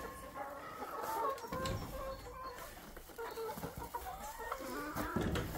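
Domestic hens clucking, several calling over one another in short pitched calls, with a couple of low thumps about a second and a half in and near the end.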